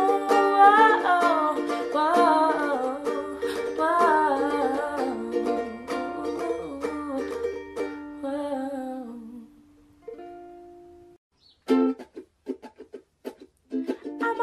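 Background music: a ukulele song with a soft voice singing along, fading out about nine seconds in. After a short pause, plucked ukulele notes start again near the end.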